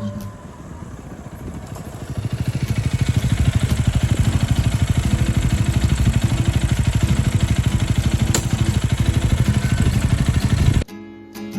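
Honda Rebel 250's single-cylinder engine running. It gets much louder about two seconds in, with a rapid, even exhaust pulse, and cuts off suddenly near the end.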